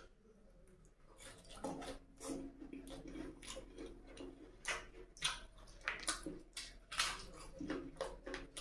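Close-up chewing of a mouthful of puri with egg curry: irregular smacking and clicking mouth noises, picked up by a clip-on microphone, that grow louder after the first second or two.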